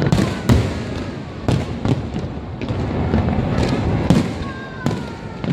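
A fireworks display going off: a rapid run of sharp bangs, about eight in five seconds, over a constant low rumble.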